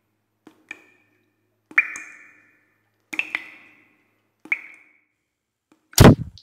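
A series of about six sharp plinks, each ringing briefly and fading; then, about six seconds in, a loud hand slap to the head.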